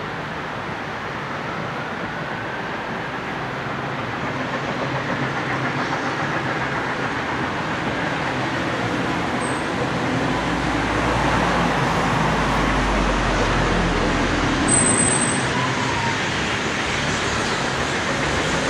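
A steam locomotive working up the line in the distance, heard as a steady rush that slowly grows louder as it approaches.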